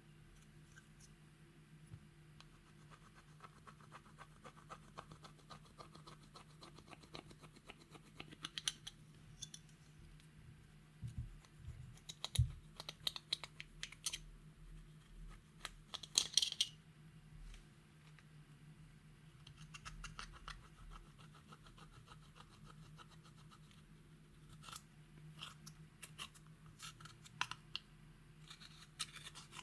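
Slime being worked by hand: quick sticky clicks, crackles and scratchy squelches, with a couple of louder pops partway through.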